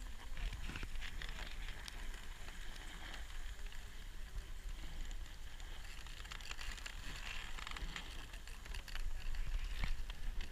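Dog sled gliding over a snowy trail behind a husky team: a steady hiss of the runners on the snow, with a low rumble and scattered crackles and clicks.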